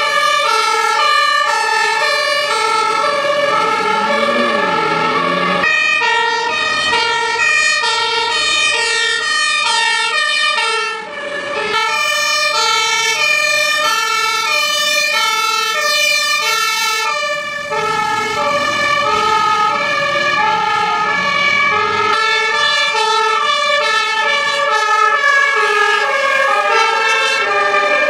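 Fire engine two-tone siren alternating steadily between a high and a low note, a few changes a second, with the sound shifting abruptly several times as it moves from one siren recording to the next.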